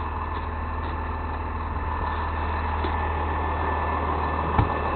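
Truck engine running steadily, with one sharp click near the end.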